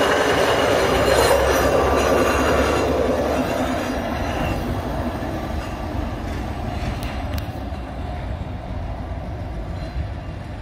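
Chevrolet hi-rail pickup truck running along the rails on its steel guide wheels and tyres, a rolling rumble that is loudest as it passes and fades steadily as it moves away.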